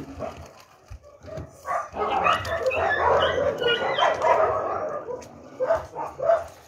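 A large pack of dogs barking and yelping at once, the excited clamour of dogs at feeding time. It swells about two seconds in, holds for about three seconds, then thins to a few separate calls near the end.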